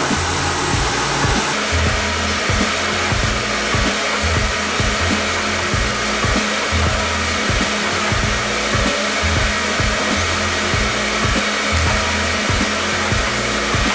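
A steady, loud rushing noise like air from a blower, with a pulsing bass line of background music underneath.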